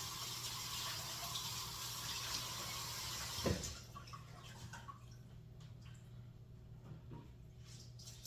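Kitchen faucet running steadily, shut off with a knock about three and a half seconds in; then only faint handling clicks.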